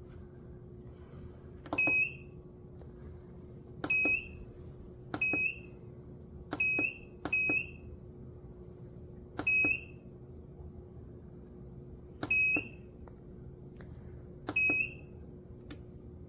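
Ice cream maker's control panel beeping as its buttons are pressed: eight short high beeps at uneven intervals, each starting with the click of a press. A faint steady hum runs underneath.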